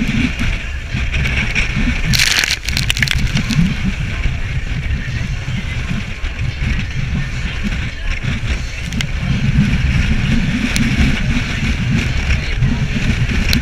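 A small open boat running fast through a choppy sea: a gusting, rumbling wind-and-water roar on the microphone with a steady hiss of spray. A loud splash of spray comes about two seconds in.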